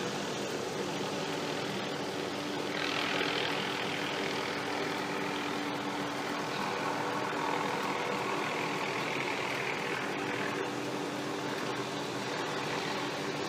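Helicopter running steadily, a continuous engine and rotor drone with a steady low hum. About three seconds in, a louder hiss joins and lasts until a little past ten seconds.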